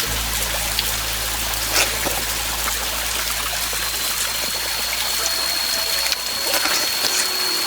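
Running water from a stream or waterfall: a steady rushing hiss. A thin, steady high tone joins in about halfway through.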